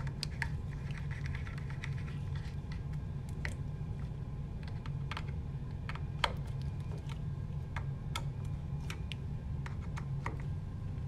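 Small Phillips screwdriver tightening screws into a print engine's mount in a plastic printhead housing: scattered, irregular light clicks and ticks of the tip and screws, with one sharper click about six seconds in. A steady low hum runs underneath.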